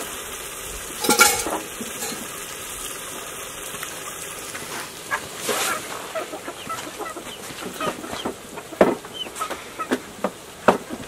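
Chickens clucking, with one loud squawk about a second in, and a run of short clicks and knocks from dishes and utensils being handled on a wooden table near the end.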